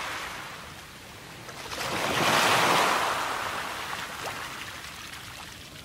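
Ocean surf: a wave breaking and washing in, swelling to its loudest about two to three seconds in, then slowly falling away.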